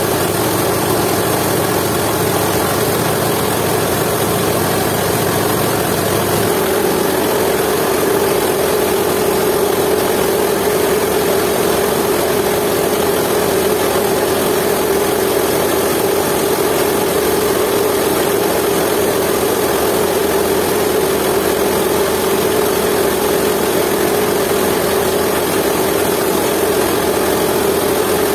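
Jiangdong 8 hp single-cylinder diesel engine running steadily under load, belt-driving a mill that is grinding dried coffee beans: a loud, even mechanical drone with machine rattle. The tone changes slightly about six seconds in, with less low rumble.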